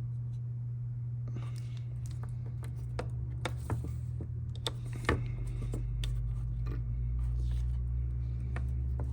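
Small sharp clicks and short scratchy scrapes from handling and scraping the metal terminals of an RCA plug to prepare them for solder, over a steady low hum.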